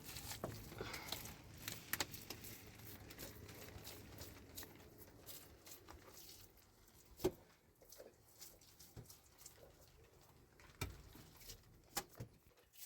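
Faint scattered knocks and taps over a low rustle, busier in the first half, then a few isolated sharper knocks, the clearest about seven seconds in.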